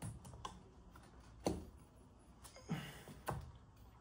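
About five scattered metallic clicks and knocks of hand work on a Loncin 200cc single-cylinder motorcycle engine as its cylinder head is worked loose for removal.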